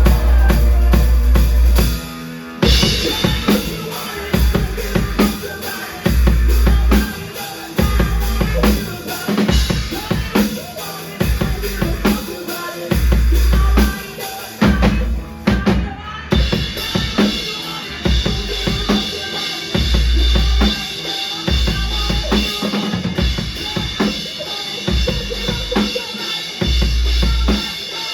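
Live rock band playing loud music: a drum kit beating out kick and snare over long, heavy bass notes. The music drops briefly about two and a half seconds in and shifts to a brighter, fuller sound about halfway through.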